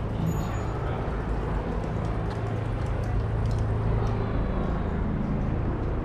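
City street traffic, with a large vehicle's engine running close by as a steady low hum that is strongest through the middle.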